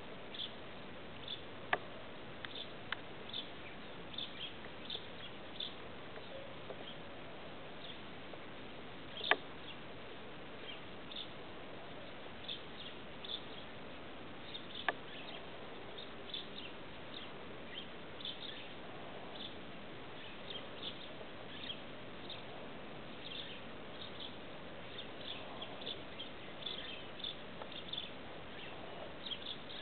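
Outdoor background ambience: a steady hiss with many faint, short, high chirps scattered throughout, and a few sharp clicks, the loudest about nine seconds in.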